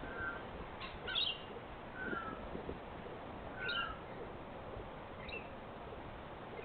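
Wild birds giving short chirping calls, five or so spaced a second or more apart, over a steady background hiss.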